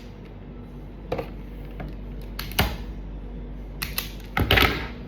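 A few sharp clicks and knocks, spaced irregularly, with a short scraping rustle about four and a half seconds in: hands handling an analog multimeter and its broken probe lead.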